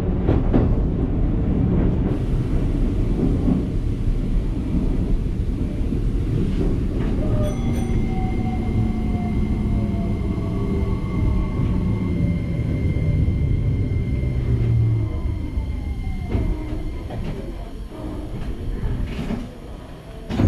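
Electric commuter train heard from the driver's cab: a steady rumble of wheels on rail, with the electric motors' whine sliding down in pitch from about eight seconds in as the train slows. The noise eases off near the end as it comes alongside a platform.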